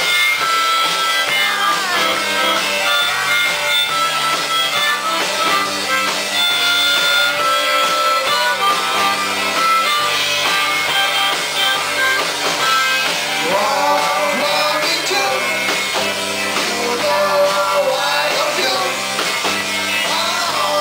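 Live classic rock band playing: electric guitar, bass and drums, with held harmonica notes through the first several seconds and a sung vocal line later on.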